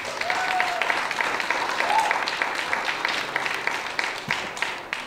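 Guests clapping, dense and sustained, dying away near the end, with a brief call or two from the crowd early on.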